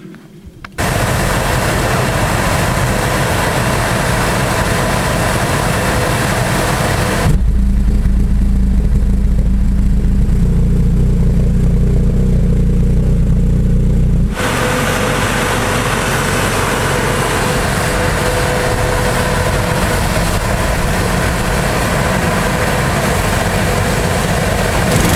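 Large home-built valved pulse jet running, a loud continuous buzzing drone that starts abruptly about a second in. For several seconds in the middle the sound is deeper and heavier, with less treble, before returning to the brighter drone.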